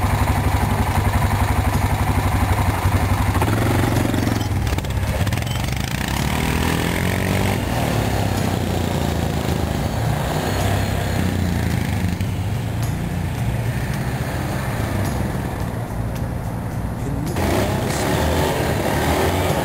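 Yamaha Wolverine 450 ATV's single-cylinder four-stroke engine running. It is loudest in the first few seconds, revs up about four seconds in as the quad pulls away, then runs steadily at a distance and picks up again near the end.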